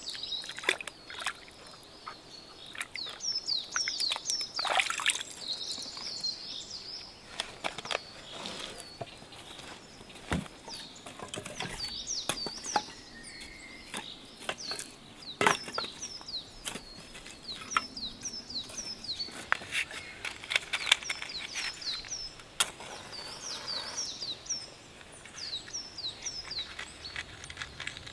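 Small birds chirping over and over, short quick calls. Early on, water splashes and sloshes as tomatoes are washed by hand in a tub of water. Later, dry sticks knock and clatter as they are stacked in a stone fire pit.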